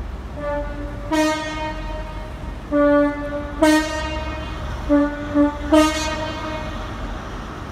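Train horns sounding a series of about seven short blasts at slightly differing pitches, over a steady low rumble from the trains.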